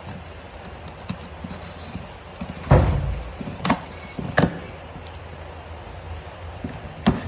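Packing tape on a cardboard box being slit and torn, with the flaps pulled open: a loud thump of the box being handled nearly three seconds in, then several sharp crackles and rips of tape and cardboard.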